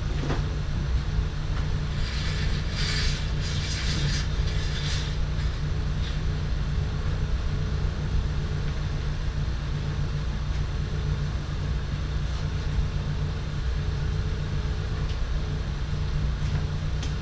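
A steady low hum, with a few seconds of scraping and rattling about two seconds in as the Miata's hardtop is handled and fastened.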